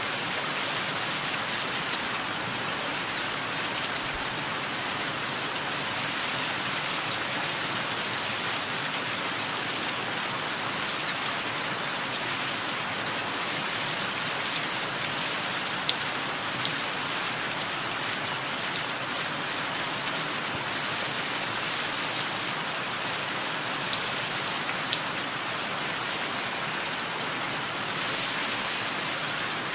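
Steady rain hiss with a bird repeatedly giving short, high, downward-sweeping chirps, usually in quick pairs or small groups every second or two.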